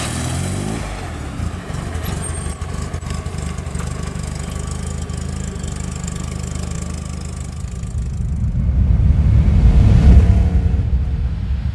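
The four-cylinder engine of a 1977 MG Midget runs as the small convertible drives off at low speed. A louder low rumble swells near the end, peaking about ten seconds in.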